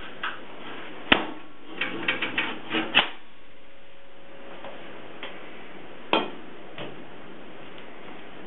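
Sharp metal knocks and clicks as the spring hinge of an L&L kiln lid is worked on to free its spring. There is one knock about a second in, a quick run of clicks and knocks from about two to three seconds in, and another knock about six seconds in.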